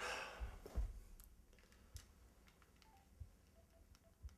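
Faint clicks and short beeps of a cell phone's keypad being pressed, with a few key tones in the second half. A brief soft rustle at the start.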